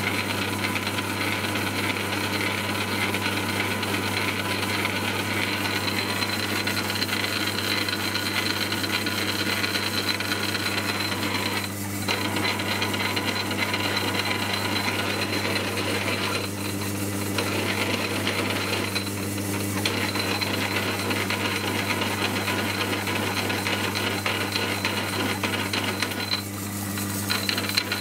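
South Bend 9 lathe running while a large twist drill bores a cross hole through steel tubing spun in a four-jaw chuck: a steady motor hum under a constant cutting rattle. The cutting noise eases briefly a few times, about 12, 17, 19 and 27 seconds in.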